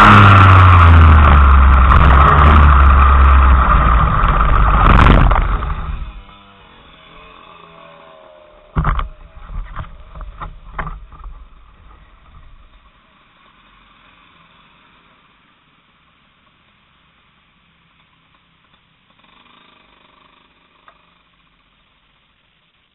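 Racing kart engine running loud and dropping in pitch as the kart slows, a loud bang about five seconds in as the kart hits the tyre barrier, and the engine cutting out about a second later. A few sharp knocks follow a few seconds after, then only faint sound.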